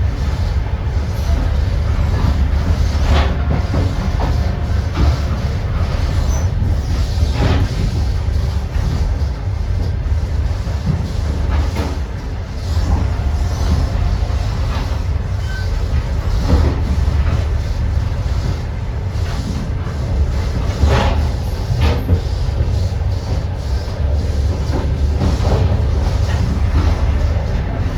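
Passenger train running along the track: a steady low rumble with occasional sharp knocks of the wheels over the rail.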